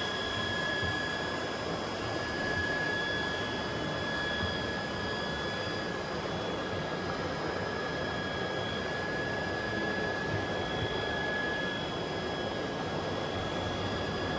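Steady mechanical whir with a thin, steady high whine over it.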